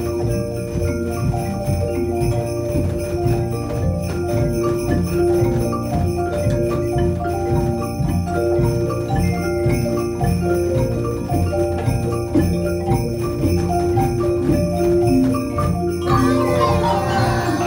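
A school Orff ensemble playing a melody on xylophones and metallophones, the bars ringing in quick notes over a steady low bass part.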